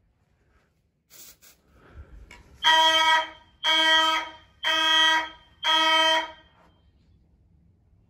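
Simplex 4903-9104 fire alarm horn sounding four short, loud blasts about a second apart, then stopping: a brief signal as a smoke detector is tested. Two short hisses come just before the blasts.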